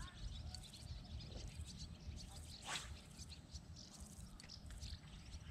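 Birds chirping in short high calls over a low rumble, with one brief louder sound about halfway through.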